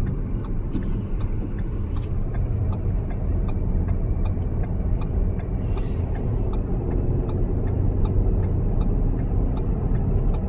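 Steady low rumble of a car driving, heard inside the cabin, with a faint regular ticking about two or three times a second and a brief hiss about six seconds in.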